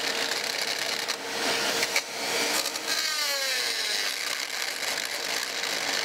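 Dremel rotary tool with a grinding stone running against an aluminium 4B12 cylinder head, opening out a head-stud hole so a socket will fit, over the steady rush of a shop vacuum pulling away the chips. Around the middle the tool's whine falls in pitch as it winds down.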